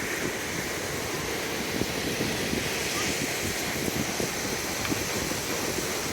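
Steady rushing noise of wind and ocean surf, with wind buffeting the microphone.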